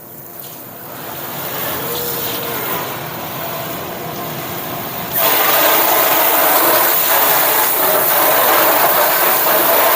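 Water spraying from a hose into a flood-damaged furnace's cabinet to flush out mud, a low rushing at first that turns suddenly into a loud steady hiss about five seconds in.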